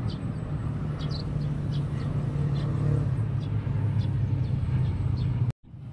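Steady low drone of road traffic, with scattered short high chirps over it. The sound cuts out abruptly for a moment near the end.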